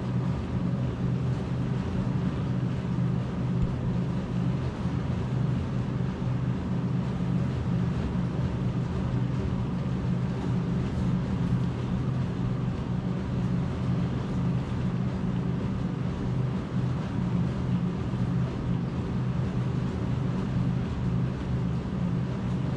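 Steady hum of a clinical treadmill's motor and belt, running at 3.4 miles an hour on a 14% grade with a person walking briskly on it.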